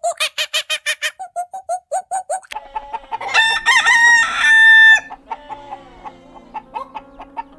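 Chickens clucking in a quick run of short notes, then a rooster crows about three seconds in with one loud call lasting nearly two seconds, followed by scattered softer clucks.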